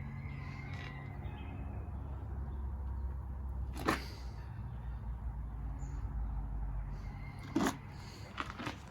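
A low steady hum with two short sharp knocks, the first about four seconds in and the second near the end.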